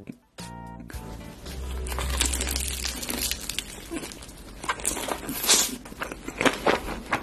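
Close-miked crunching as a crispy, powder-coated fried chicken drumstick is bitten and chewed, the crackle densest in the second half. Music plays briefly under a second in.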